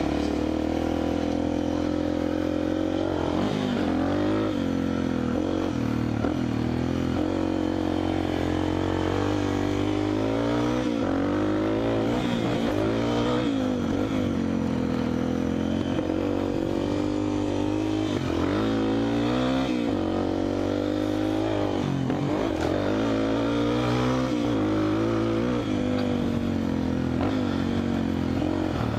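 Honda XR250 Tornado single-cylinder trail motorcycle engine being ridden hard, its pitch rising and falling every second or two as the rider revs up, shifts and backs off.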